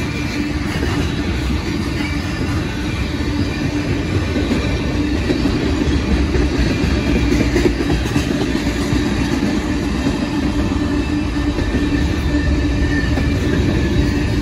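Freight train tank cars and covered hopper cars rolling past close by: a steady rumble of steel wheels on the rails.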